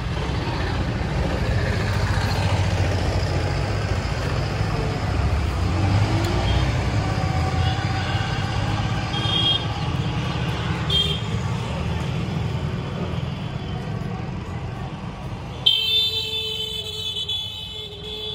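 Steady rumble of passing road traffic, with two short high horn toots midway and a sudden, longer horn note near the end.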